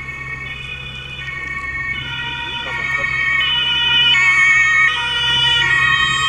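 German two-tone emergency-vehicle siren (Martinshorn) alternating between a high and a low tone about every three-quarters of a second, getting louder from about two seconds in.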